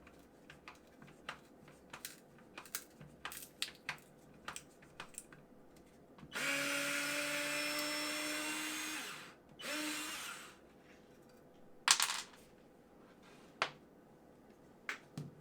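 Parkside PASS 4 A1 4-volt cordless electric screwdriver motor running steadily for about three seconds, then a second short run. Light clicks and taps come before and after, from the tool being handled and worked.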